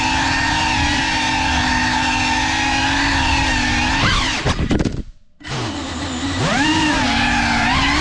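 FPV quadcopter's brushless motors and propellers whining steadily, heard from the drone itself. About four seconds in the whine stutters and jumps in pitch and the motors cut out for about half a second, as in a crash at floor level. Then they spin back up with a rising whine.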